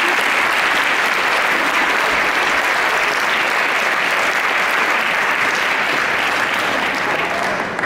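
Audience applauding: steady, dense clapping that starts to die down near the end.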